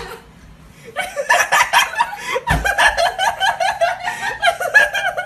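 A person laughing hard in rapid, breathy bursts, starting about a second in and going on to the end.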